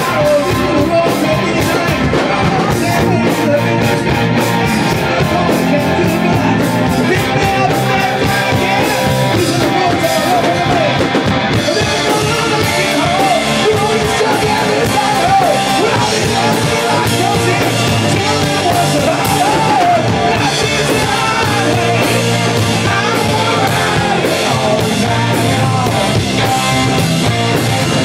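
A live rock band playing loud: a man singing into a microphone over electric guitars, keyboard and a drum kit.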